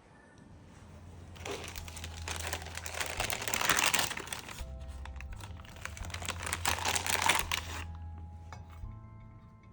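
Crinkling and rustling, handled in two long stretches, over soft background music.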